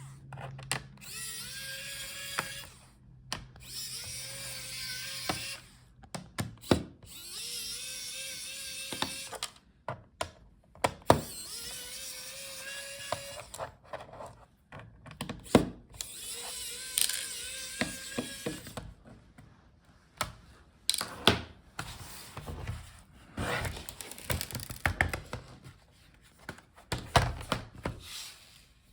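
Small electric screwdriver spinning in runs of a few seconds, backing out a laptop's bottom-case screws, its whine rising slightly in pitch during each run. Sharp clicks and light clatter of screws and the driver being handled come between the runs, and only clicks and clatter in the last third.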